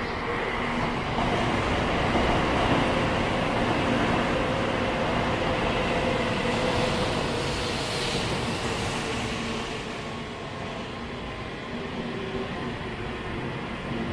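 Tokaido Shinkansen train pulling into the platform and slowing to stop: a steady rumble of wheels and running gear with a faint hum, easing off gradually over the last few seconds as it slows.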